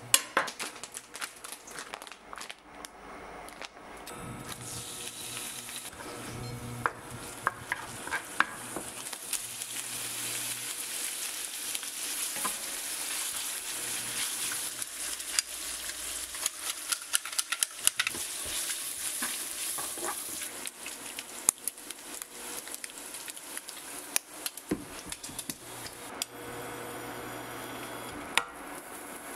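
Strips of bacon and green chili sizzling in a stainless steel frying pan, stirred with a wooden spatula that clicks and scrapes against the pan. It opens with plastic packaging being handled and a few sharp clicks, and the sizzle drops away near the end, leaving a few knocks.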